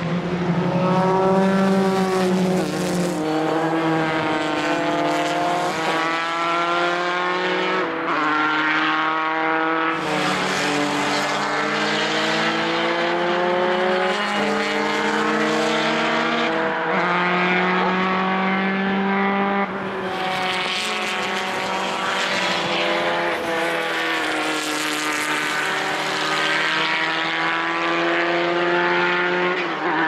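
Several historic single-seater formula racing cars at racing speed, their engines overlapping. Each engine's pitch climbs steadily, drops back at a gear change and climbs again.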